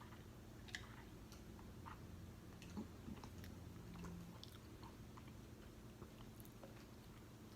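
Faint close-up chewing, with scattered small wet mouth clicks, and a short low hum from the eater about midway.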